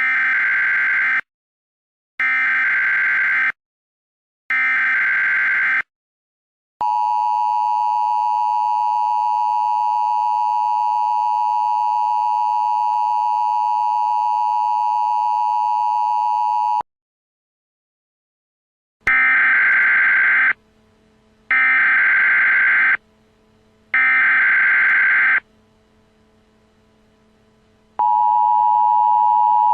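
Emergency Alert System tones. Three short bursts of digital header data, then the steady two-tone attention signal for about ten seconds. After that come three more data bursts over a faint low hum, and the attention signal starts again near the end.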